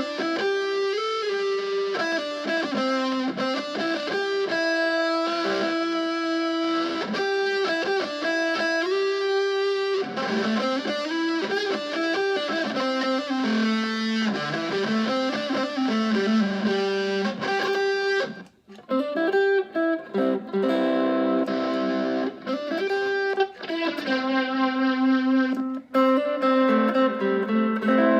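Fender Stratocaster electric guitar played through effects pedals: a single-note melody with bends and slides. About two-thirds of the way through it breaks off briefly, then comes back with fuller, longer-held notes and chords.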